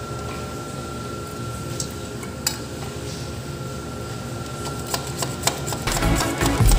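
A hacksaw scrapes through a PVC water pipe with a few light clicks. Music comes in near the end.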